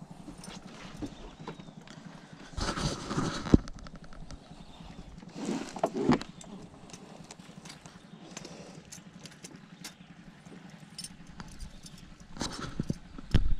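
Knocks, clicks and rattles on the wooden floorboards of a small boat as a giant snakehead is held down and a buzzbait lure is worked out of its mouth, with louder scuffling bursts around three seconds in, around six seconds in and near the end, and one sharp knock.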